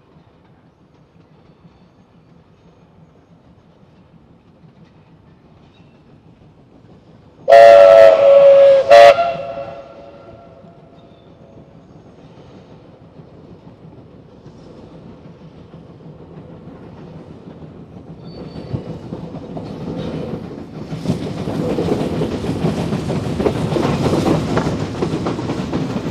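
Steam locomotive whistle, one long blast and then a short one about eight seconds in, over the faint sound of the approaching train. The train then draws closer and its coaches run past near by, growing louder toward the end.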